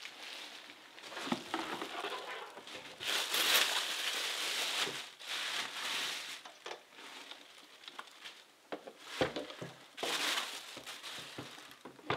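Plastic bag crinkling and rustling in bursts as it is pulled off a newly unboxed pressure cooker, with a few knocks as the cooker is handled.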